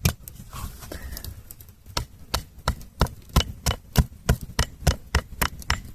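A run of sharp knocks or cracks, a few scattered at first, then coming about three a second from about two seconds in.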